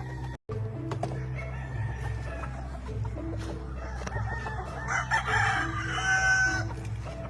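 Gamefowl roosters crowing and hens clucking, the loudest crow near the end, over background music with a steady low beat. The sound cuts out for an instant near the start.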